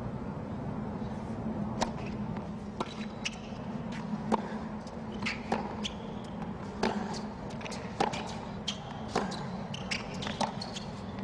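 Tennis rally on a hard court: sharp pops of racket strikes and ball bounces about once a second, over a steady low background hum.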